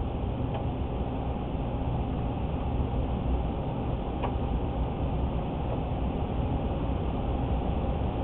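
Steady low rumbling background noise at an even level, with a couple of faint light clicks.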